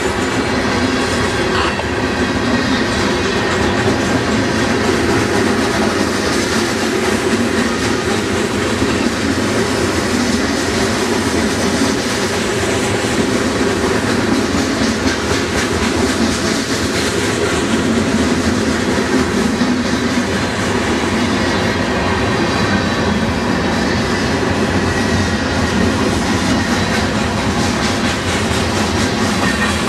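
Freight cars rolling past: a steady, loud noise of steel wheels running on the rails.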